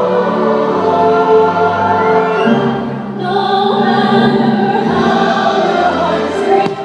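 Choir singing with orchestral music, changing chord about three seconds in, with a faint bang or two of fireworks near the end.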